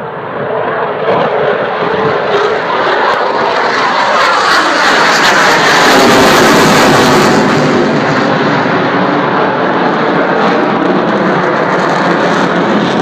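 Eurofighter Typhoon jet flying past. Its twin-turbofan engine noise swells over the first few seconds, peaks about six seconds in with a sweeping, shifting tone, then stays loud.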